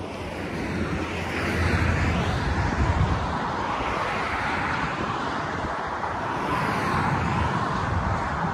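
Road traffic on a highway: a steady rush of passing vehicles' tyres and engines, swelling over the first second or two and then holding steady.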